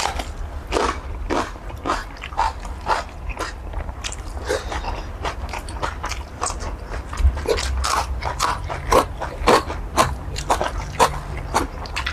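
Close-miked eating of curry squid: a rapid, irregular series of short biting and chewing sounds over a steady low hum.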